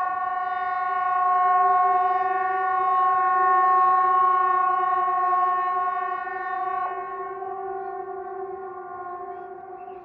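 Hesa Fredrik outdoor civil defense warning siren, switching on abruptly and sounding one steady held tone with overtones, with no rise or fall in pitch. It weakens gradually over the last few seconds but is still sounding at the end.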